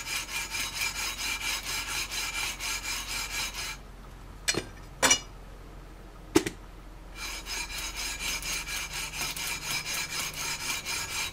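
Sandpaper on a long aluminum leveling beam rubbed back and forth over the EVO fret wire of a guitar neck to level the frets, about four rasping strokes a second. The strokes stop for about three seconds midway, with a few short knocks, then start again.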